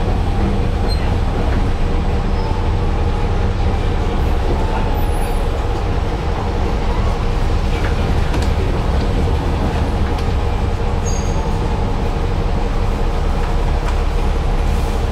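Interior noise of a trolleybus moving slowly in traffic: a steady low rumble with several steady hum tones from its electric drive and equipment, and a few light knocks.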